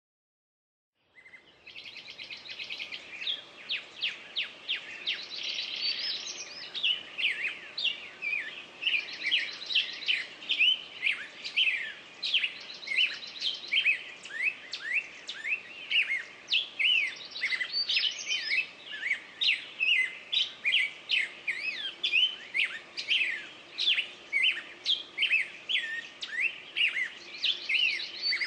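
Birds singing and chirping in a dense run of short, quick notes, starting about a second in.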